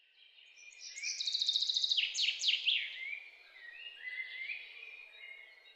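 Birds chirping: a fast trill of high repeated notes, then quick downward-sweeping calls and a run of short rising whistles, over a faint outdoor hiss.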